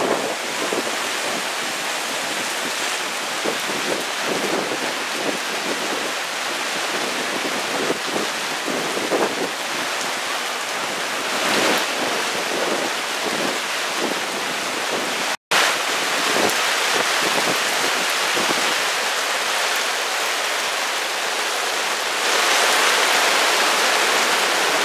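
Torrential rain pouring down in a steady hiss, cut off for an instant about halfway and a little louder near the end.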